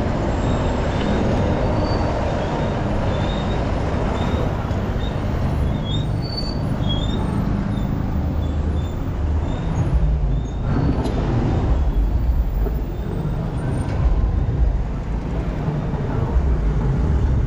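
City street traffic: a steady, dense rumble of vehicle engines and road noise.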